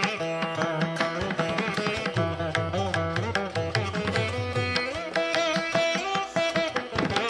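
Instrumental background music: a melody that slides between notes over a steady percussive beat.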